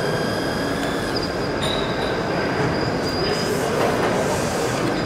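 Radio-controlled scale-model O&K crawler excavator driving on its tracks onto a trailer ramp: a steady mechanical clatter from the track drive with a high, thin whine that wavers slightly in pitch.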